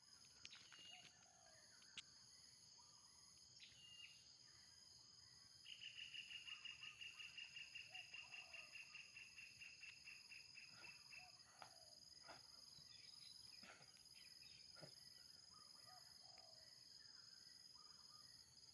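Faint outdoor ambience: a steady high insect buzz, with a rapid trill of evenly spaced pulses that starts about six seconds in and stops about five seconds later, and a few soft clicks.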